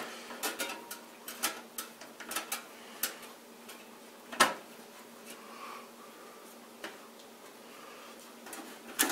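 Small irregular metal clicks and taps of a screwdriver and screws on a motherboard and steel PC case as the board is screwed down onto its standoffs, with one sharper click about four and a half seconds in.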